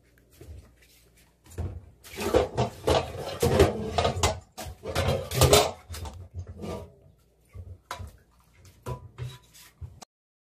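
Dishes being washed by hand in a stainless steel kitchen sink: irregular knocking and clatter of bowls and a plastic basin, busiest from about two to six seconds in, with sparser clinks after. It stops abruptly near the end.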